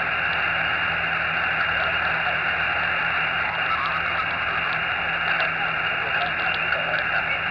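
Xiegu X6100 HF transceiver receiving on 40-metre lower sideband: steady static hiss from its speaker as the dial is tuned slowly up the band.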